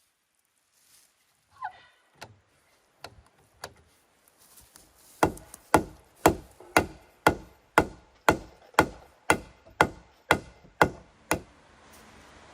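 Hammer blows on wood, driving a locust dowel: a few scattered taps, then a steady run of about a dozen strikes at roughly two a second.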